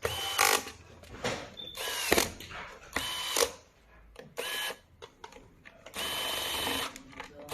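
Small electric screwdriver running in short bursts, about six times, each with a steady high whine that drops in pitch as the motor stops. It is driving in the screws that close up the flowmeter's case.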